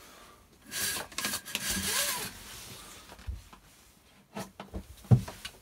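A cabin window blind being slid open: a noisy sliding rub lasting about a second and a half, then a few sharp clicks near the end, the last the loudest.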